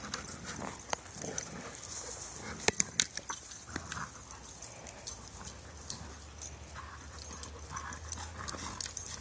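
Dogs playing with a rubber ball on dry grass and leaves: scuffling and rustling, with scattered clicks and a few sharp knocks about three seconds in.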